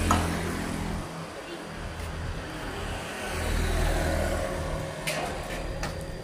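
A motor vehicle engine running with a low, steady hum that swells and fades around the middle, with a few sharp clicks near the end.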